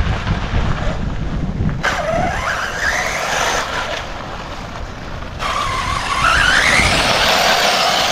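Arrma Typhon 6S brushless RC buggy driving across dirt, its electric motor giving a rising whine as it speeds up, once about two seconds in and again about five and a half seconds in.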